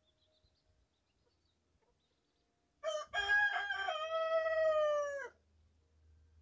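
A rooster crowing once, starting about three seconds in: a few short clipped notes, then a long held final note that sags in pitch and cuts off. Faint high peeping of chicks before and after it.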